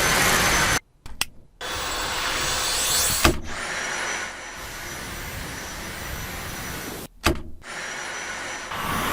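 Dyson vacuum cleaner motor running: a dense hiss with a steady high whine. The sound cuts out briefly twice, and there is a sharp click about three seconds in.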